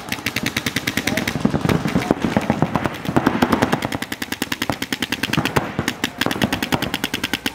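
Paintball markers firing in rapid, evenly spaced strings of shots.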